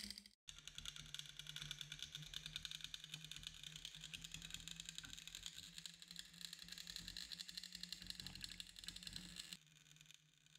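Welding arc at a robot-held welding torch crackling rapidly and steadily as it deposits molten metal to build a free-standing metal rod, over a low steady hum. The sound cuts out for a moment just after the start and drops much fainter about a second before the end.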